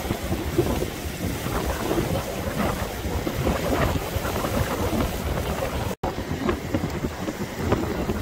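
Strong wind buffeting the microphone over surf breaking on a rocky shore, in uneven gusts. The sound drops out for an instant about six seconds in.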